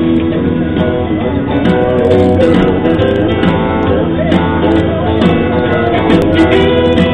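Background music: the guitar intro of a song, with no singing yet.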